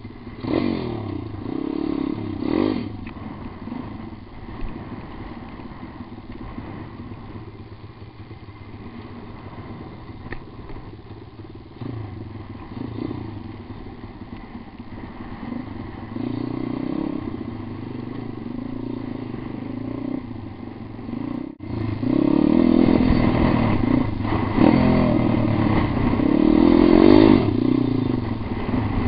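Pitbike engine revving up and down in repeated bursts while being ridden over rough dirt. It gets louder after a short break about two-thirds of the way through.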